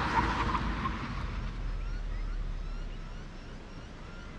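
Toyota GR86's 2.4-litre flat-four fading away as the car drives off, dying down over the first three seconds. Short high chirps repeat faintly behind it.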